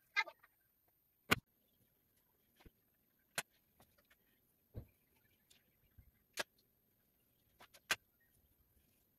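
Table-top craft handling: a short scratchy rustle at the start, then a few isolated sharp clicks and taps, a second or more apart, as jute twine is wound onto a toothpick frame.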